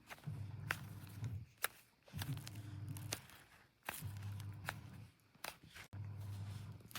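Hands squeezing soft, clay-feel squishy toys shaped like fruit close to the microphone: four muffled presses of about a second each, with small clicks and taps of handling between them.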